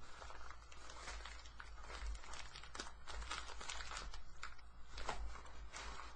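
Clear plastic packaging bag crinkling and rustling as it is handled and opened, with irregular sharp crackles.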